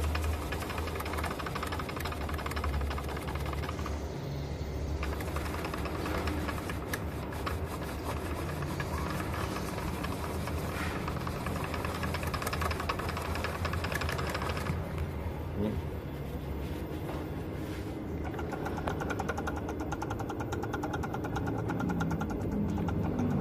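Mercedes-Benz C200 engine running steadily with a loud growl from the power steering pump, the sign of a worn pump bearing, which also leaves the steering heavy.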